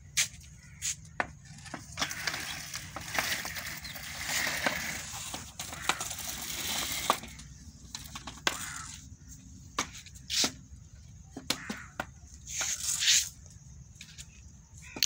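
A long wooden stick scraping and knocking on a concrete floor against a plastic baby walker as the walker is shoved about on its small wheels: irregular clicks, knocks and rough scraping.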